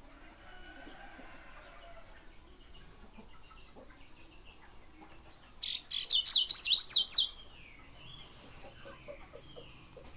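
Double-collared seedeater (coleiro) singing one short, loud phrase of rapid high whistled notes, rising and falling in pitch. It comes about halfway through and lasts under two seconds, with a few faint calls after it.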